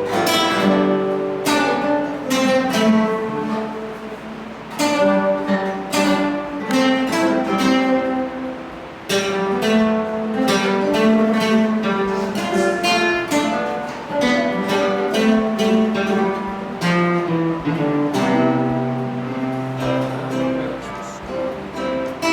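Acoustic guitar playing an instrumental passage, with plucked notes and strummed chords in a steady run.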